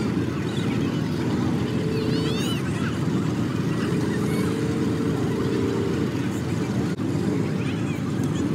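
Engines of several off-road rock crawlers and 4x4s running while stopped in line on a rocky trail: a steady low rumble with a few held revs, over faint crowd voices.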